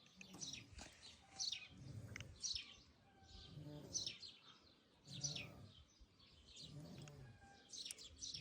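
A man snoring, faint, a rasping snore roughly every second and a half with high squeaky notes over each one.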